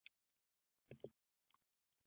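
Near silence: room tone, with a faint click just after the start and a brief soft sound about a second in.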